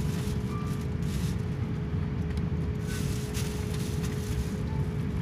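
Steady low rumble of airliner cabin noise, the jet engines running as the aircraft moves along the runway, with a faint steady hum over it.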